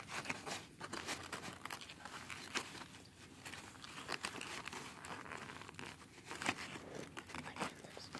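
Foil-lined paper food wrapper being crinkled and handled by hand, with irregular crackles and rustles throughout.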